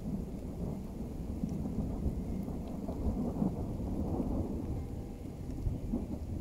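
Thunder rumbling low and continuously, swelling about three to four seconds in, over the steady hiss of rain.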